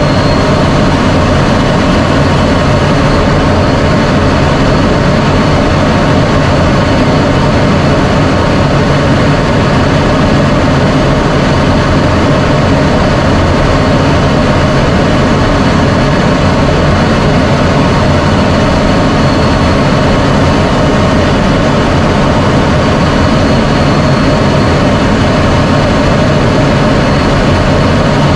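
Steady jet engine noise of an F-16 Fighting Falcon heard inside the cockpit, loud and unchanging, with a few faint steady tones over a constant rush.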